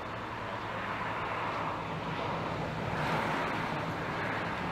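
Road traffic noise: a vehicle passing, its tyre and engine noise swelling to its loudest about three seconds in, over a steady low engine hum.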